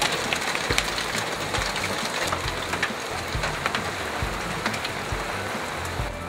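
Heavy rain falling, a steady hiss with many individual drops ticking sharply on a nearby surface and occasional dull low thumps.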